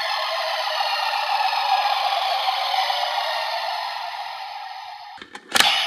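Electronic sound effect from a Kamen Rider transformation-belt toy: a steady hiss with faint falling whistles in it that fades out after about four seconds, followed by a couple of sharp clicks near the end.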